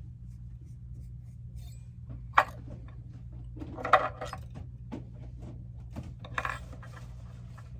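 Small brass clock bushings being handled and sanded on a workbench: a sharp click about two and a half seconds in, then two short bursts of clicking and scraping around four and six and a half seconds in, over a steady low hum.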